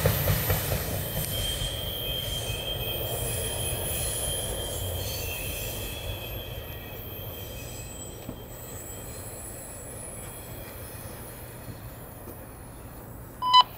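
Tail end of a freight train of refrigerated boxcars rolling away around a curve, its wheels squealing against the rails in thin, high, steady tones over a low rumble that fades as the train recedes.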